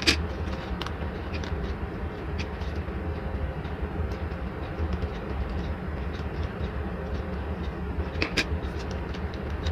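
Light clicks and taps of a plastic Mini 4WD body shell and decal sheet being handled, over a steady low background rumble. A sharper click comes at the very start and another about eight seconds in.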